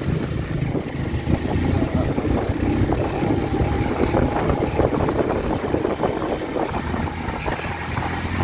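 Small motorcycle's engine running at low speed over a rough, stony dirt road, with the bike clattering and rattling over the bumps. A single sharp click about four seconds in.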